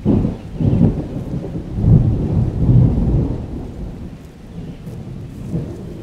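Low rumbling noise with no clear pitch, surging several times in the first few seconds and then easing off.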